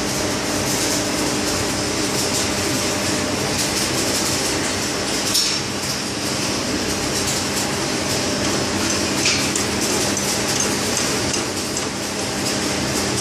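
Electric arc welding crackling and hissing steadily in the welding booths, over a steady machinery hum.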